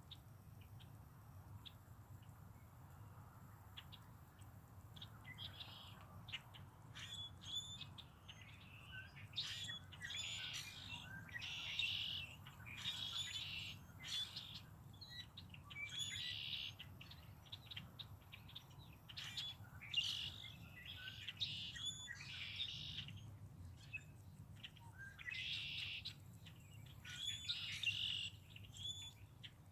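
Small songbirds chirping and twittering in quick bursts of short high calls, sparse at first and busier after several seconds, over a faint steady low hum.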